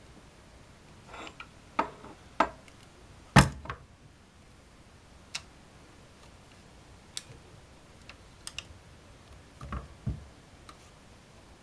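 Walther LGM-2 match air rifle's action being worked by hand: a series of sharp metal clicks and clunks, with one heavy clunk about three and a half seconds in and scattered lighter ticks after it.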